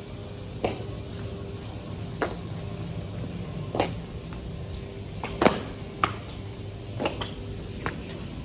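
Honor guard rifle drill: a series of sharp, irregular clacks and slaps as hands strike and catch the drill rifles, mostly a second or so apart, the loudest about five and a half seconds in.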